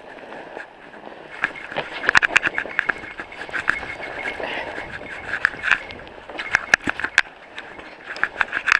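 Mountain bike ridden over a snow-covered trail: tyres crunching through snow under a run of irregular clicks and rattles from the bike over bumps.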